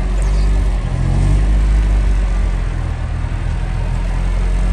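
Nissan 240SX's engine idling, heard close to the rear of the car: a loud, steady, low rumble.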